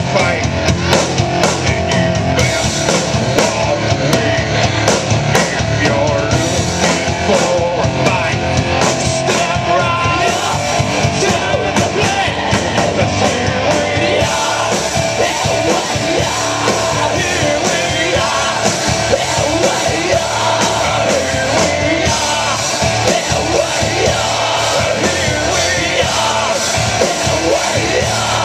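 A rock band playing live: electric guitar and drum kit, with a man singing.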